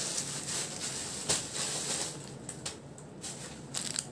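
Rustling of a cotton kurti being handled and put aside, with a few short rustles and soft knocks.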